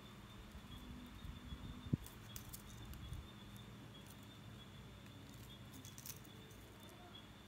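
Faint handling noises from a miniature wooden-stick bench and its coloured craft wire: small clicks and light rustles as it is turned in the hands, with one sharper tap about two seconds in.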